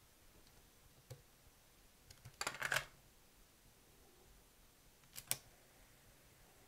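Plastic cassette clattering and clicking as it is set into a Sony TC-120 recorder's cassette transport, about two and a half seconds in. A sharp click a little after five seconds comes from one of the transport's piano-key buttons.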